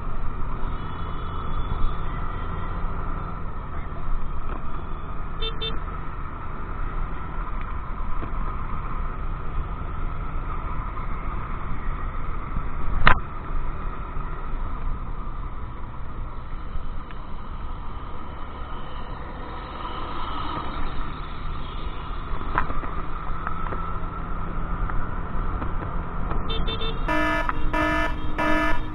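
Wind buffeting the microphone over the running engine and road noise of a scooter being ridden in strong wind, with a single sharp click about halfway. Near the end a pitched beep sounds in short pulses, a little under twice a second.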